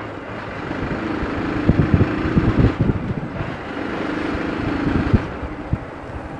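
Hero Xtreme 200R's 200 cc single-cylinder engine running under way, heard from the rider's seat, its note swelling twice as the throttle is held open.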